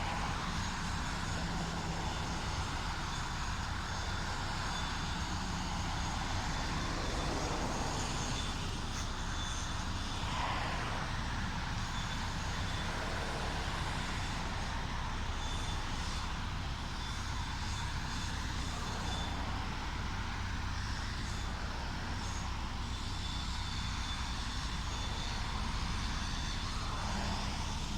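Steady low rumble of distant road traffic, with a faint thin high tone coming and going.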